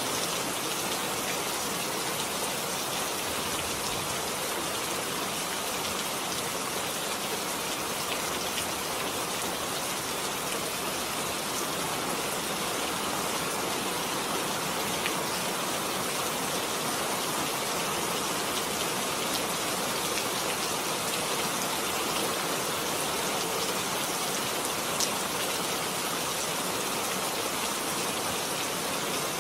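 Steady rain falling, an even hiss of many drops on hard surfaces, with an occasional louder drop tick.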